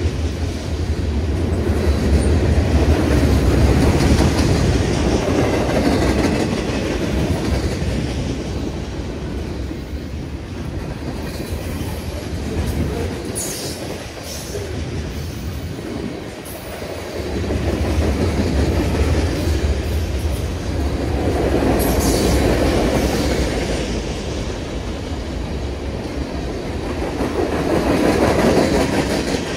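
Freight train cars rolling past on steel rails, wheels clacking over the rail joints in a steady rumble that swells and fades several times. Brief high-pitched wheel squeals come twice.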